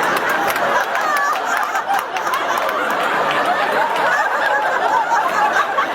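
Audience laughing hard and steadily, with scattered clapping, in reaction to a comedian's punchline.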